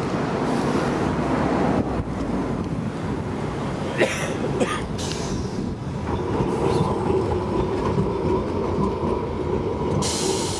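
Vintage A31-class tram no. 331 standing at a stop, with a sharp knock about four seconds in, a steady hum setting in about halfway, and a hiss starting near the end.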